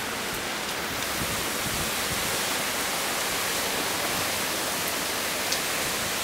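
Heavy rain falling steadily in a strong wind, an even hiss with no breaks.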